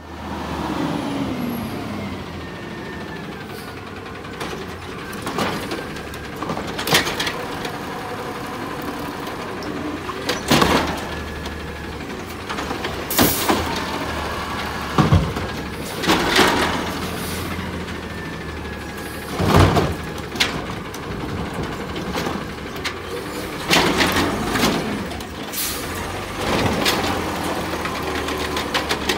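Natural-gas Peterbilt 320 automated side-loader garbage truck running, its engine a steady low hum. A few whining pitch glides come from the truck, and about eight sharp bangs and hisses come as the arm grabs, lifts and dumps the carts.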